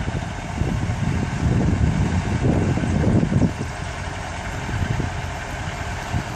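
Caterpillar 140H motor grader's diesel engine running as the grader spreads hot-mix asphalt, louder from about a second in, then dropping back to a steady run a little past the middle.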